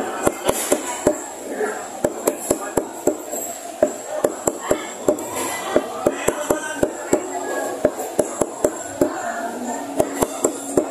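Large knife chopping the claw tips off chicken feet on a round wooden chopping block: quick, uneven sharp knocks of the blade on the wood, about three or four a second.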